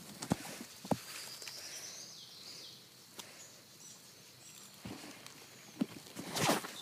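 Footsteps and handling rustle on a woodland floor of twigs and dead leaves: a few scattered cracks and crunches, then a louder rustle near the end.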